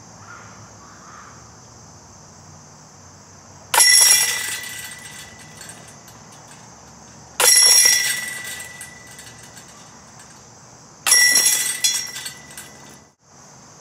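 Three putted discs striking the hanging chains of a Hive cross-chain disc golf basket, about three and a half seconds apart; each hit is a sudden crash and jingle of metal chains that rings and dies away over a second or two as the disc drops into the basket.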